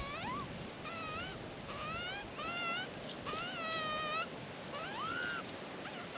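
Australian magpie giving a run of short warbling calls, each note gliding up and down in pitch, about one or two a second, with wind noise beneath.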